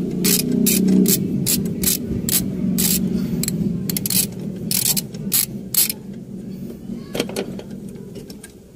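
Hand ratchet wrench clicking in quick, irregular strokes as a bolt on the accelerator cable bracket is backed out. The clicking stops about six seconds in, over a low steady hum.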